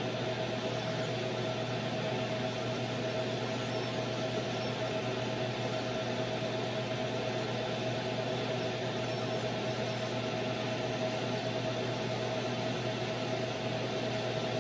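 Laser engraver running as its spot traces the outline of a plastic plate: a steady fan-like rush with a constant mid-pitched hum, unchanging throughout.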